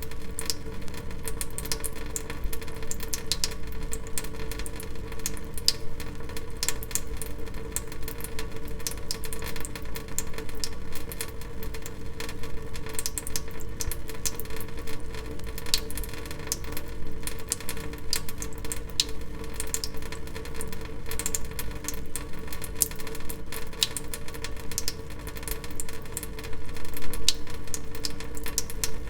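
Water dripping, many irregular drips a second, over a steady low hum.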